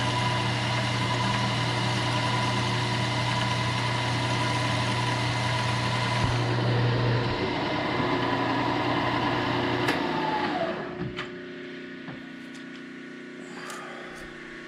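Milling machine spindle running with a drill chuck fitted: a steady mechanical whir with a low hum and a higher whine, which is switched off about ten seconds in and winds down, leaving a quieter steady hum.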